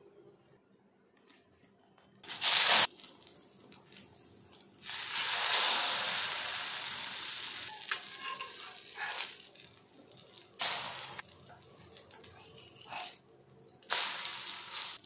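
Egg-soaked bread slices frying on a hot greased cast-iron dosa tawa: a sudden loud sizzle about five seconds in that slowly fades over a few seconds, with shorter bursts of sizzling before and after as slices go down and are turned.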